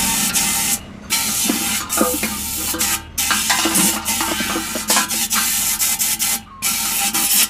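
Compressed-air blow gun blasting into the open fuel-pump hole of a motorcycle fuel tank to blow out water and rust: a loud hiss in long bursts, broken by three short pauses. Underneath runs the steady hum of the engine-driven air compressor.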